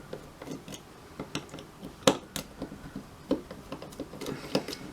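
Small screws being undone with a precision screwdriver on a mobile phone's circuit assembly: irregular light clicks and ticks of the driver and screws, with two sharper clicks about two seconds in.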